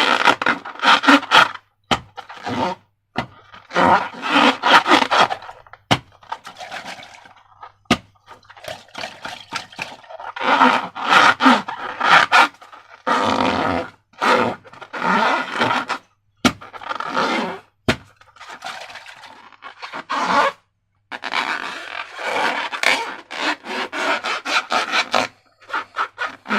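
Slime being squeezed and worked by hand, in irregular bursts of sticky squishing and crackling a second or two long, with a few sharp clicks between them.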